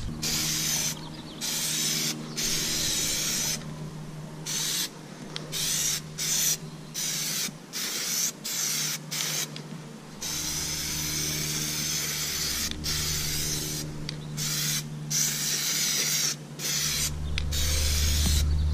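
Aerosol can of Plasti Dip spraying in repeated short hissing bursts with brief pauses between them, laying down the third coat of rubber coating.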